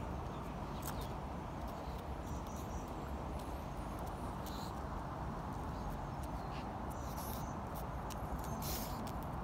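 Steady outdoor background rush with scattered light clicks of a pug's claws on stone flagstones as it walks.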